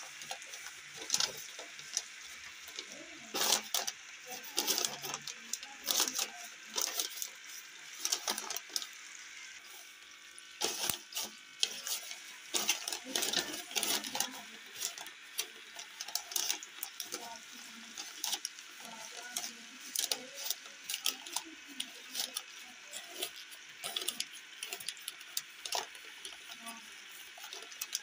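Sheets of lined notebook paper crinkling and rustling as hands press them into a metal steaming pot to line it, a dense run of irregular crackles.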